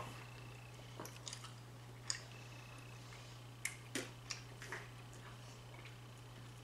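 Faint, wet smacks and clicks of a mouth chewing a huge wad of Big League Chew shredded bubblegum, coming irregularly.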